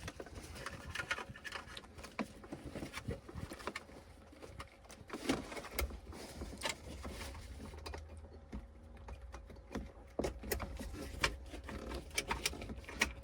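Irregular clicks, taps and rustles of plastic wiring connectors and cables being handled and plugged back in, over a faint low hum.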